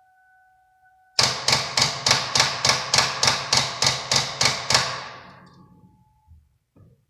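Starter solenoid of a 2002 Ford Taurus clicking rapidly when the key is turned, about a dozen sharp clicks at roughly three a second before it stops. The car cranks no further: the sign of a flat battery.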